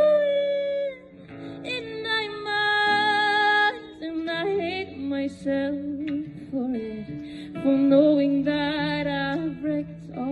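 A woman singing a slow song to her own strummed guitar, drawing out long held notes with vibrato.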